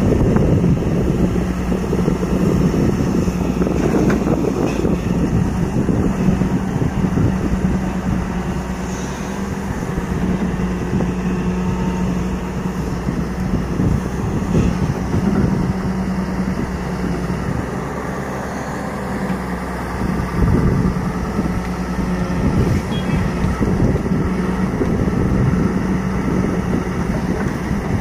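Hyundai 210 crawler excavator's diesel engine running steadily as it works its boom and bucket, the level swelling and dipping a little with the load.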